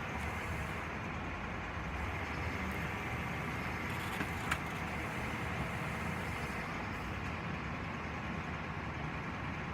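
Steady running noise of heavy vehicle or machinery engines, with a low hum underneath and one short sharp click about four and a half seconds in.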